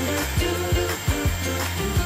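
Background music with a steady drum beat and held bass notes.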